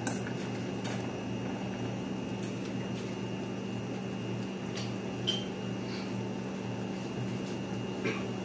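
Steady hum of a kitchen appliance running, with a thin high whine over it and a few faint clicks, about a second in, about five seconds in and near the end.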